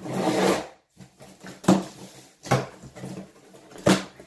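Clear packing tape being ripped off the top of a cardboard shipping box: one long tearing rip at the start, then three short, sharp tugs about a second apart.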